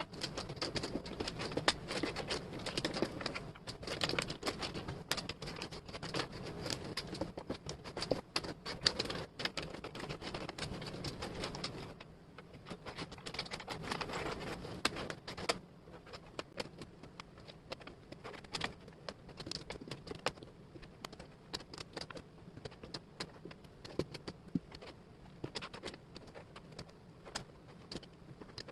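Wooden jigsaw puzzle pieces clicking and clattering as they are handled, sorted and fitted together: a dense run of small taps for the first half, thinning to scattered clicks after about fifteen seconds.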